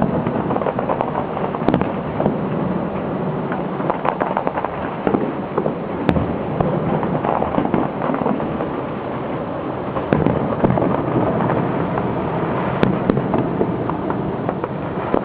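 Fireworks going off in a rapid, continuous crackle of many small bangs and pops, with a few louder sharp reports standing out.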